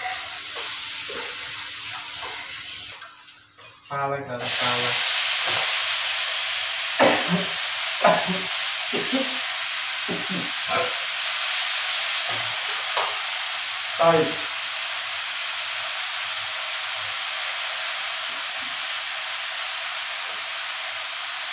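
Fresh spinach frying in hot butter and spices in a wok (kadhai), sizzling steadily. The sizzle jumps suddenly louder about four seconds in as the spinach goes into the pan, then holds steady as it is stirred.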